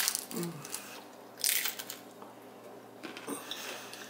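Crisp fried tortilla taco shell, cooked a little too long, crunching as it is bitten and chewed: a crunch at the start, another about a second and a half in, and a fainter one a little after three seconds.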